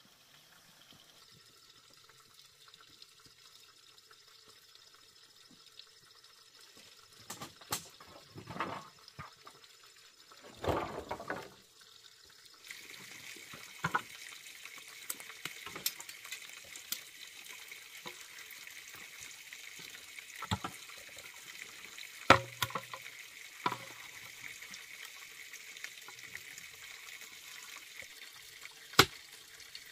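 Water starting to run steadily about halfway through, as from a tap or pipe, with scattered clinks and knocks of things being handled. A few clattering knocks come before the water starts.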